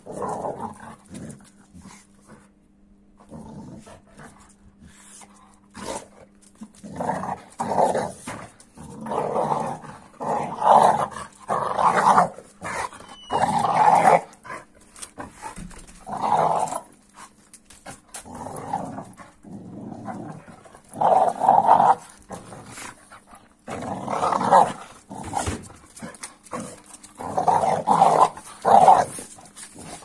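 American Staffordshire terrier growling at a Kuvasz puppy during rough play, in repeated short bouts of growls with brief quieter pauses.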